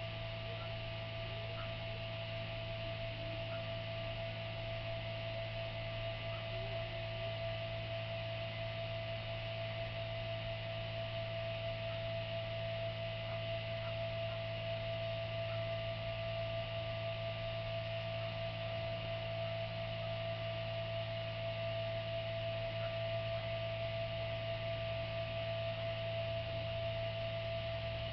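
A steady electrical hum with a constant whine above it, unchanging throughout.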